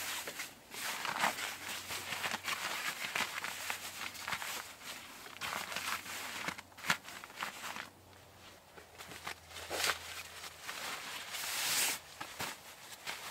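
Rustling and crinkling of camping gear being handled: a foil-faced insulating mat and an inflatable sleeping pad being spread and slid onto a camp bed, in a run of irregular scrapes and crackles, with a louder swish near the end as the sleeping bag is handled.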